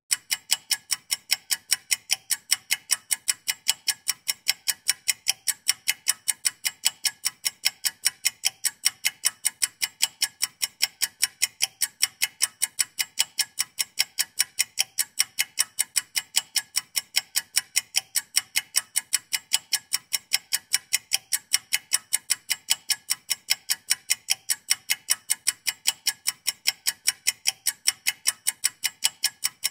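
Ticking clock sound effect of a one-minute countdown timer: sharp, evenly spaced ticks, several a second, with no other sound.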